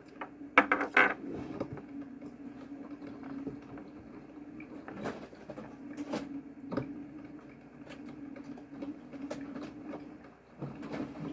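Scattered clicks and knocks of kitchen things being handled and set down, with a quick cluster about a second in and single knocks later, over a steady low hum.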